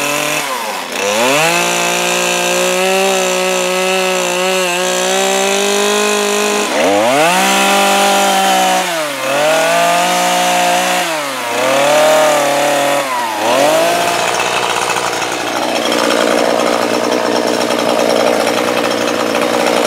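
Small two-stroke Stihl MS 150 chainsaw cutting shapes into a wooden board, revving up and dropping back again and again as it takes each cut. For the last several seconds it runs steadily at high speed.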